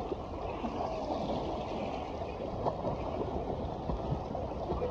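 Shallow water sloshing and splashing as a man wades through it and a dog paddles beside him, a steady watery rush without distinct strokes.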